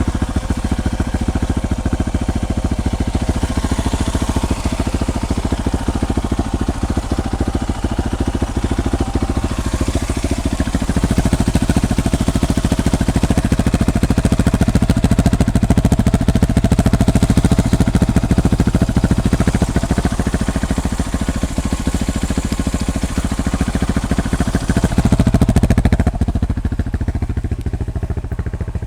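Motorcycle engine running steadily under way; it grows louder about a third of the way in, is loudest shortly before the end, then eases off.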